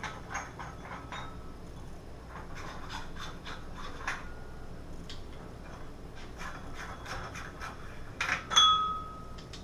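Light bulb being handled and screwed into a fixture: scattered small clicks and scraping, then a sharp clink with a brief ringing tone near the end.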